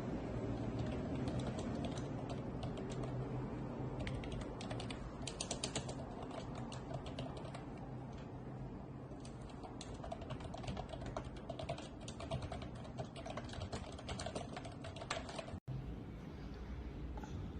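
Typing on a MOFII wireless vintage-style keyboard: a fast, uneven run of key clicks. There is a brief break from an edit near the end.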